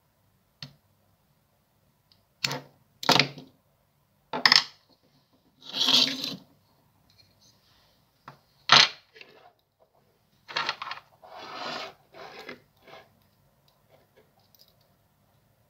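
Irregular small metallic clicks, clinks and short scrapes of a screwdriver and spade wire terminals against the plastic trigger-switch housing of a Makita impact driver as the wires are pried out and the parts are handled, about ten in all.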